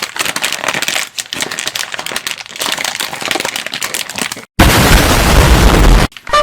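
Foil-lined chip bag crinkling and crackling as it is handled, then a loud rush of noise lasting about a second and a half as the bag is pulled open near the end.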